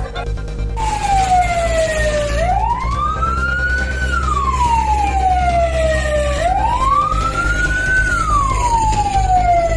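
An emergency vehicle's siren wailing, rising and falling slowly in pitch about once every four seconds, starting suddenly about a second in, over a low rumble.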